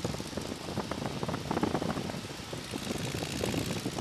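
De Havilland Tiger Moth biplane in flight: its four-cylinder engine and propeller running steadily, mixed with the rush of the slipstream through the open cockpit.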